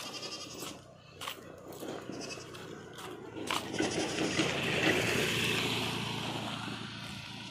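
Motor scooter engine passing close by, its sound growing louder to a peak about five seconds in and then fading away.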